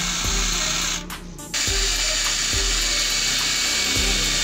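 Hand-held electric drill boring into a steel plate, the motor and bit cutting metal with a steady high hiss. It stops for about half a second, about a second in, then starts again.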